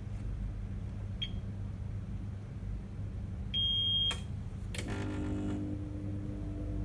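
APC Smart-UPS 1500 powering up for its self-test after a battery replacement: a faint short chirp, then one high beep about half a second long, followed by a couple of sharp relay clicks and a steady electrical hum as the unit starts running.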